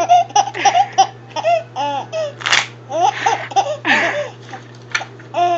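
Baby laughing in a run of short high-pitched giggles, with a few breathy, gasping laughs between them; he has the hiccups.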